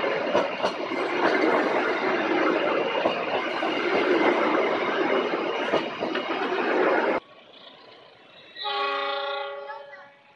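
Passenger train coaches rolling past close by: a loud, steady rush of wheel-on-rail noise with scattered clicks. It cuts off abruptly about seven seconds in. Near the end a train horn sounds once, faintly, for about a second and a half and fades.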